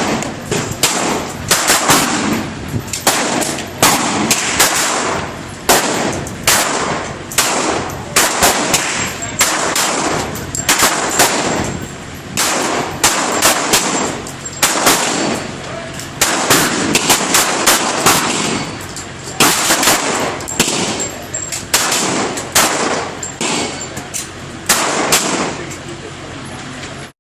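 Gunfire at a shooting range: dozens of sharp shots at irregular intervals, often several in quick succession.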